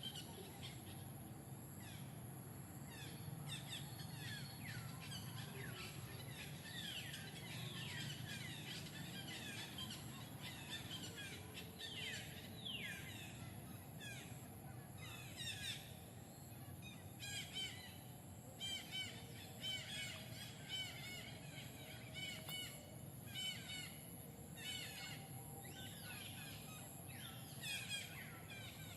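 Birds chirping outdoors: many short, high chirps and falling whistles, coming in quick bursts more often in the second half, over a steady low background hum.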